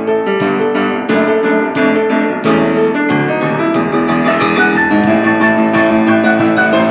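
Piano playing an instrumental blues break: a steady stream of struck notes and chords.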